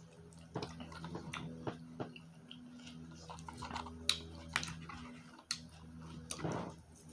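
Close-up chewing of a mouthful of mango chicken salad: irregular wet mouth clicks and smacks, over a steady low hum.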